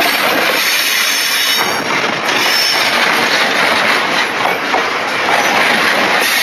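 Freightliner coal hopper wagons rolling past at close range: a loud, steady rumble and rattle of wagon wheels on the rails, with a thin wheel squeal briefly about a second and a half in.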